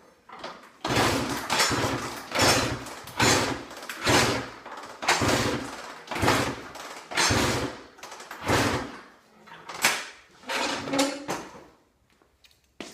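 Honda CR85R two-stroke dirt bike being kick-started over and over, about a dozen kicks roughly one a second, the engine turning over on each stroke but never firing. The bike has not started since it bogged down while riding, even with a new spark plug.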